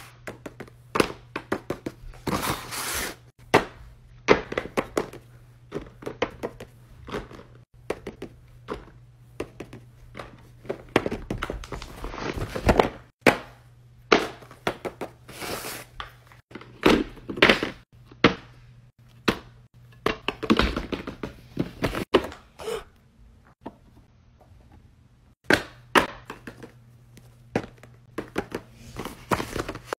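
Small plastic and silicone fidget toys being handled and set down on paper sheets: irregular short thunks and clicks, with a few brief rustles.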